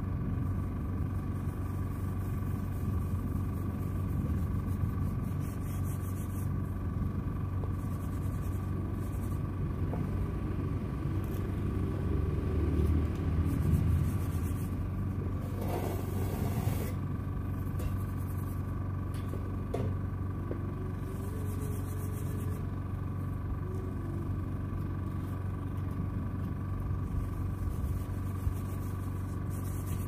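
An engine running steadily at a constant speed, a low hum with fixed tones underneath. It swells slightly about halfway through, and a brief hissing scrape comes just after.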